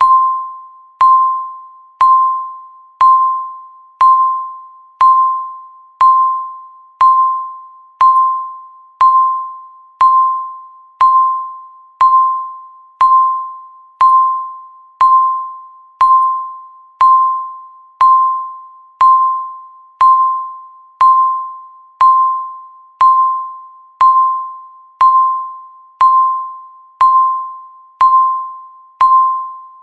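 Countdown timer beep sounding once every second, about thirty times in a row: a single clear tone, struck sharply each time and fading away before the next.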